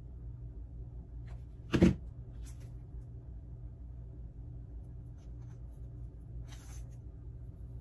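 A hot glue gun set down on a cutting mat with one sharp knock about two seconds in, then a few faint taps and rustles of hands working a foam egg onto its stick, over a steady low hum.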